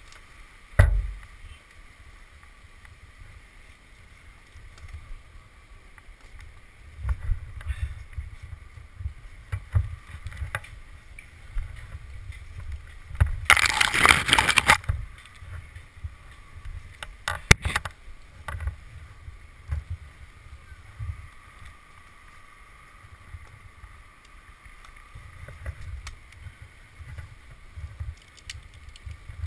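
Low, gusty rumble of wind and handling noise on a climber's head-mounted camera microphone as he moves and works his rope in the tree, with a thump about a second in, a loud rush of noise lasting about a second and a half near the middle, and a few scattered clicks.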